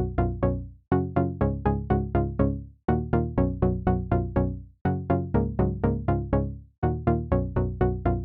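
Background music: an electronic synthesizer pattern of quick plucked notes, about four a second, repeating in short phrases with brief gaps between them.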